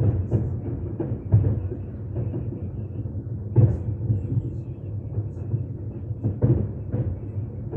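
Aerial fireworks shells bursting in an irregular series of booms over a continuous low rumble, the loudest bursts about a second and a half in and at about three and a half seconds.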